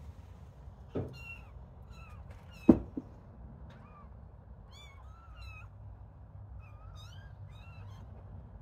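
Kittens mewing, many short high-pitched mews that rise and fall all through. A knock about a second in and a louder double thump near three seconds in.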